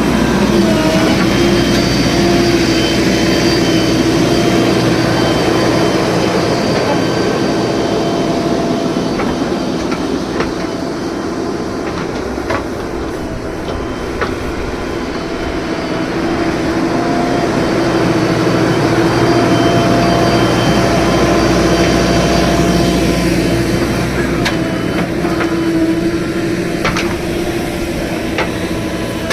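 JCB 3DX backhoe loader working: its diesel engine runs steadily under load with a constant whine from the hydraulics and a few scattered knocks of the bucket and arm.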